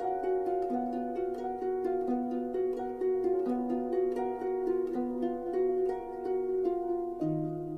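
Instrumental music of quick plucked-string notes in an even run, settling near the end on a held chord with a lower note added.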